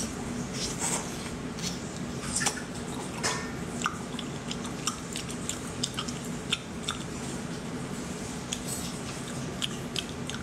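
Wet chewing and mouth smacking of cooked octopus tentacle, with many short squishy clicks at irregular intervals.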